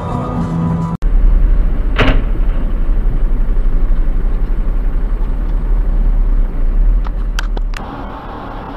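Dashcam recording from a moving vehicle: a loud, pulsing low rumble of engine and road noise from inside the cab, with one short sharp sound about two seconds in and a few clicks near the end. The audio then drops to quieter, steady road noise.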